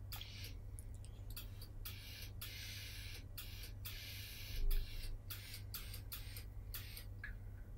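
Ironing a padded jacket sleeve's seam: the iron's sole sliding over the sintepon padding and lining fabric gives a string of short, irregular scratchy rustles, with a dull thump a little past halfway. A steady low hum lies underneath.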